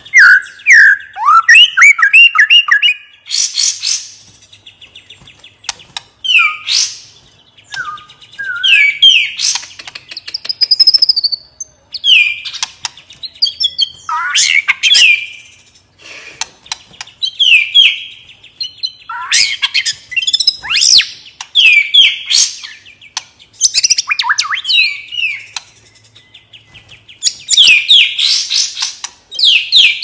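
Male white-rumped shama (murai batu) singing loud, varied song: phrase after phrase of quick downslurred notes and clear whistles with short pauses between, mixed with sharp clicks. This is the full, open "ngeplong" song used as lure song to set other shamas singing.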